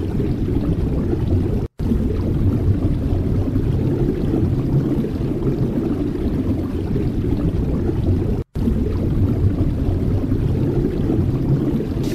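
Wind making a steady, low rumbling noise. The sound cuts out completely for an instant twice.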